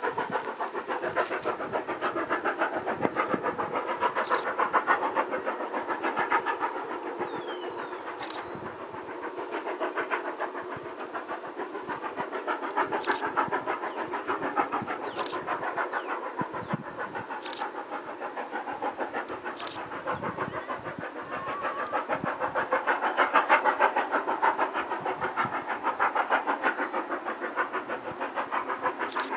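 Steam locomotive 3642, a NSW 36 class 4-6-0, heard from a distance giving a fast, even run of exhaust beats as it hauls its train, the sound swelling and easing.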